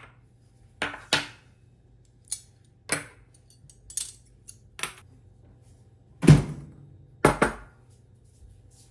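Table being set: spoons, chopsticks and small ceramic spoon rests put down on a tabletop, a string of separate clinks and taps. The loudest is a heavier knock about six seconds in as a bowl of food is set down, followed by a quick double clink.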